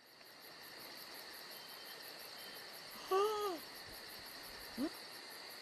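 Night-time ambience of crickets chirring steadily at a high pitch. About three seconds in an owl gives one hoot that rises and falls in pitch, the loudest sound here, and near the end there is a short rising call.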